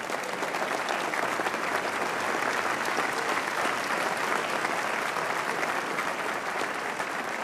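Large seated audience applauding, a dense steady clapping that eases slightly toward the end.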